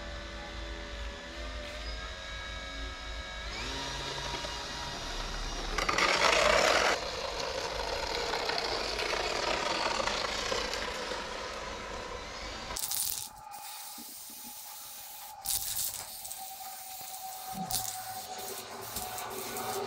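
Electric motor and propeller of an RC plane running on the ground, its steady whine stepping up in pitch about three and a half seconds in, with a loud burst around six seconds. About thirteen seconds in it cuts to an aerosol spray-paint can hissing, with a few short rattles and knocks.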